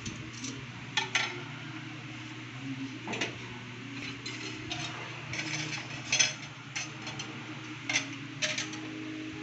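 Scattered light clicks and ticks at irregular intervals, a few sharper ones, over a steady low hum.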